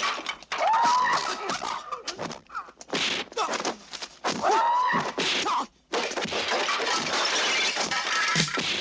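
Kung fu film fight sound effects: a quick run of sharp punch and kick impacts, broken by two rising-and-falling cries, then a denser stretch of crashing, smashing noise from about six seconds in.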